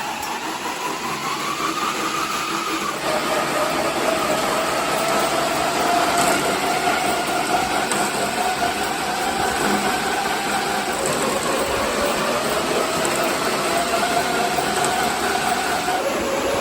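Slatmill running under a dog: its slat belt makes a steady mechanical whir whose pitch drifts up and down slowly, with a step in pitch about three seconds in and a drop near the end.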